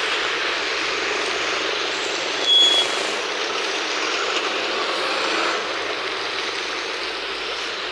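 Steady hiss of heavy rain, with one short high beep about two and a half seconds in.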